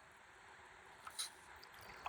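Quiet river ambience: faint water noise around a stand-up paddleboard, with one short sharp click a little over a second in.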